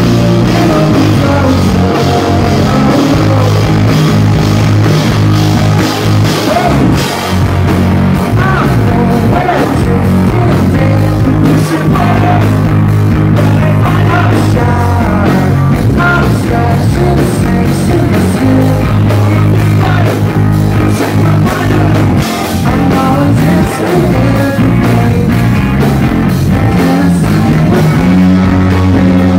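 Live rock band playing loudly, with electric guitars, bass and drums under a male lead vocal.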